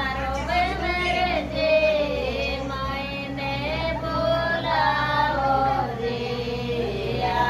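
A group of women singing a traditional folk song (geet) together without instruments, in long drawn-out notes that slide up and down, over a steady low hum.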